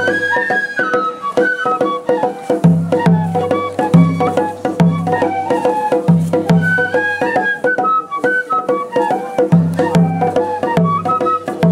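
Japanese festival ohayashi music: a bamboo flute plays a stepping melody over a repeating taiko drum pattern and sharp clicking percussion.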